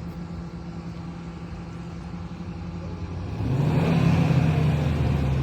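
An engine running with a steady low hum, growing clearly louder from about three and a half seconds in, as if a motor vehicle is approaching or speeding up.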